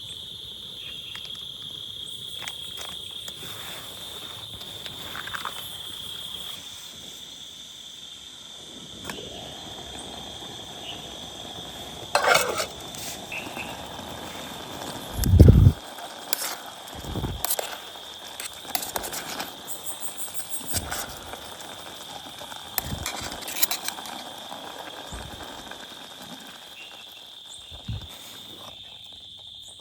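Food sizzling in a pan, starting about a third of the way in, with utensils clinking and knocking against cookware and one loud dull thump about halfway. Crickets chirr steadily behind it.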